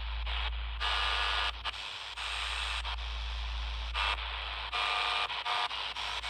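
HamGeek ATS200 portable all-band receiver playing static hiss through its speaker, with a steady low hum taken for transformer interference. The hiss cuts out briefly several times.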